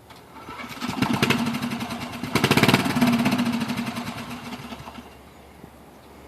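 An engine running with a fast, even pulse, swelling about a second in and fading away over the next few seconds.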